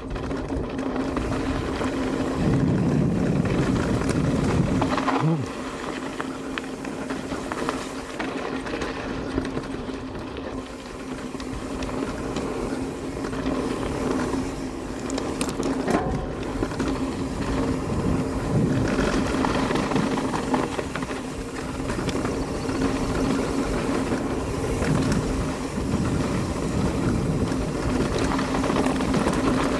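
Mountain bike ridden down a dirt jump trail: tyres rolling and rattling over the dirt, with a steady buzz throughout and a few sharp knocks from landings and bumps.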